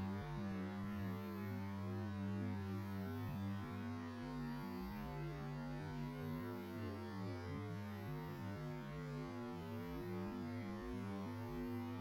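Low, steady droning hum with many wavering tones above it, like ambient sound played back several times slower than normal and dropped in pitch.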